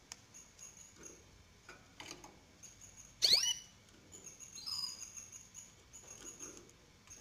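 Three-day-old canary chicks begging in the nest with many faint, very high peeps. A loud chirp that sweeps sharply downward in pitch comes about three seconds in, followed by a shorter falling call a second later.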